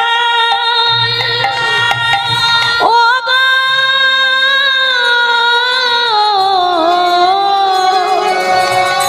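A young girl singing a Bengali devotional kirtan melody in long held notes that slide from pitch to pitch, with a short break about three seconds in and a gliding fall in pitch later on.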